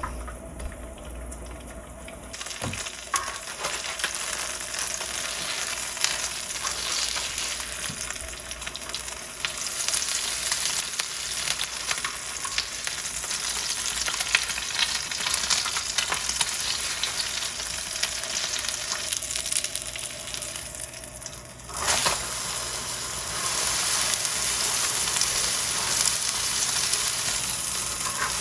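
Food sizzling as it fries in a pan, with scattered small clicks. The sizzle starts about two seconds in and jumps louder suddenly about three-quarters of the way through.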